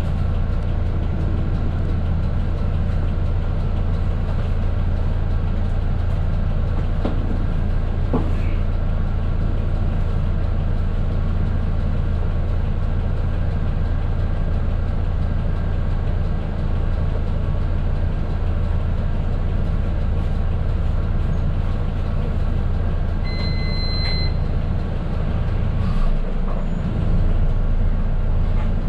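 A medium bus's diesel engine idling steadily, heard from inside the driver's cabin. About three-quarters of the way through there is one short high electronic beep, and near the end the engine note changes as the bus begins to pull away.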